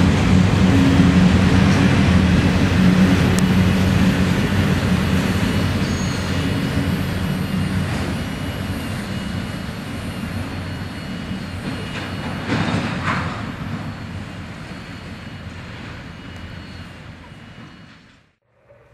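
Autorack freight cars rolling past on steel wheels and rails, a steady rumble that fades as the end of the train goes by and moves away, with a brief louder noise about twelve seconds in. The sound cuts off abruptly near the end.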